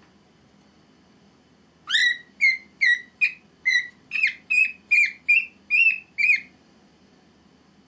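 Cockatiel giving a quick run of about a dozen short whistled chirps, two or three a second, starting about two seconds in and stepping a little higher in pitch toward the end: its attempt at singing before it has learned a song.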